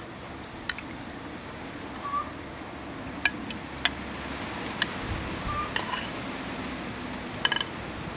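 Metal fork clinking against a metal pot while pieces are lifted out: several sharp, ringing clinks at irregular intervals, two of them close together near the end.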